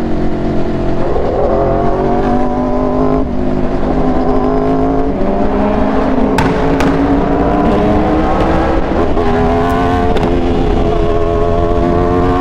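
Aprilia RSV4's V4 engine running under way, loud and steady, its pitch climbing slowly and dropping back several times through the stretch.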